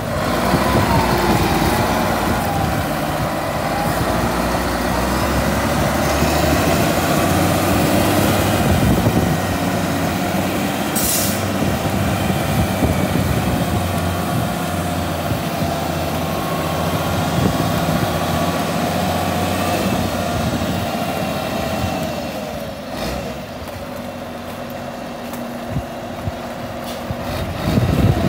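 Caterpillar 140H motor grader's diesel engine running as the grader drives about, a steady note with a whine that drifts up and down in pitch. A brief hiss comes about eleven seconds in. The engine grows fainter for a few seconds near the end, then louder again.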